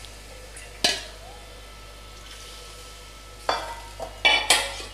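Water poured from a steel bowl into a hot kadai of oil-fried tomatoes and spices, giving a steady soft sizzle. A sharp metal clink comes about a second in, and several louder metal knocks and clinks of steel on the pan come near the end.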